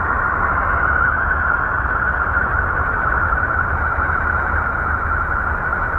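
Sonified spacecraft radio-wave recording of Uranus, radio data from Voyager 2 translated into audible sound: a steady hissing drone with a strong high band over a low rumble.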